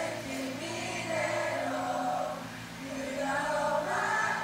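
Two women singing a slow song live into handheld microphones, recorded from the audience, with long held notes and a choir-like fullness of voices.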